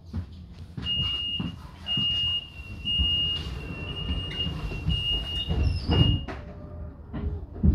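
Train door-closing warning: a high steady beep repeated about once a second for some five seconds, over the low rumble of the train, then stopping. A sharp knock follows near the end.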